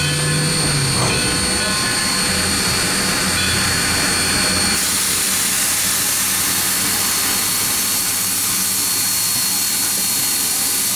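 Steady roar of a moving passenger train, the running noise of the cars on the rails with a hiss that grows stronger about halfway through.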